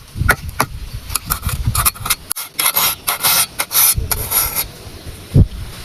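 A hand file rasping across the teeth of a tree-cutting saw in repeated scraping strokes, with a thump near the end.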